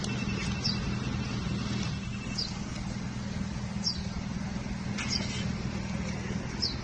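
Street traffic at a busy intersection: a steady low hum of engines with a haze of road noise, with short high falling chirps about every second and a half.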